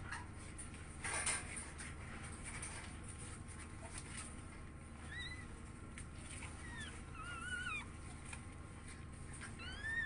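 Newborn pug puppies squeaking while nursing: short, thin, high cries, some rising and some wavering, starting about halfway in and coming more often near the end, over a steady low hum. A brief rustle comes about a second in.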